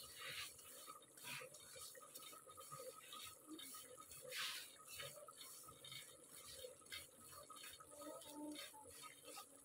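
Faint scraping of a spatula stirring semolina as it roasts in a pan: short, irregular strokes, a few each second, with one louder stroke about four seconds in.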